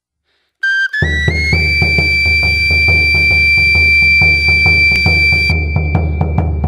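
Traditional Mexican flute-and-drum music (tambor y flauta): after a brief silence the high flute enters, slides up and holds one long note, over a steady drumbeat of about three to four strokes a second.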